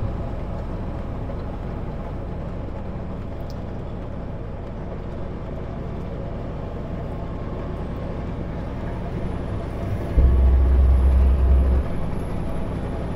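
Kenworth W900L semi truck running steadily on the highway, heard inside the cab as a low engine and road hum. About ten seconds in, a louder low rumble lasts about a second and a half.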